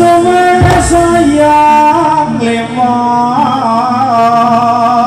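Javanese jaranan music: a long, held, ornamented melody line over a steady low accompaniment, with a drum stroke about two-thirds of a second in.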